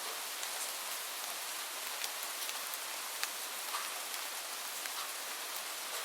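Light rain falling: a steady hiss with scattered individual drops ticking sharply now and then.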